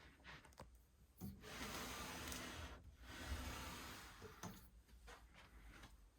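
Wood rubbing or scraping against wood in two stretches of about a second and a half each, with a few light knocks around them.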